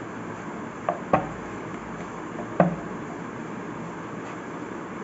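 A wooden rolling pin rolling dough thin on a round wooden board, with three short wooden knocks: two close together about a second in and one more near the middle.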